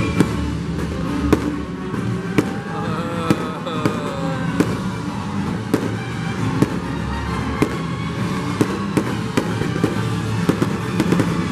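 Aerial fireworks going off: irregular sharp bangs and crackling bursts, coming thicker near the end, over a music soundtrack.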